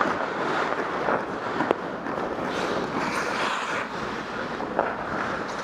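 Ice-skate blades scraping and gliding on rink ice, with wind rushing on a camera worn by a moving skater; a single sharp click, like a stick tap on the ice, about a second and a half in.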